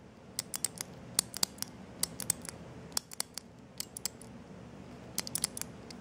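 Small three-dial luggage combination lock clicking as its metal dials are turned number by number and the shackle is pressed in after each turn to test it: an irregular run of small, sharp clicks, a few a second.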